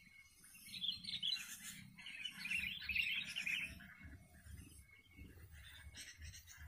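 Sooty-headed bulbuls (kutilang) chattering in two loud bursts, about a second in and again around three seconds in, with softer calls between: bulbuls squabbling around a decoy bird.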